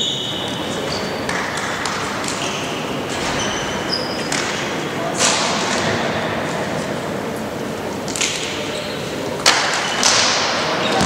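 Indoor volleyball hall between rallies: indistinct voices of players and spectators, short squeaks of sneakers on the wooden court, and a few thuds of the volleyball, two of them close together near the end.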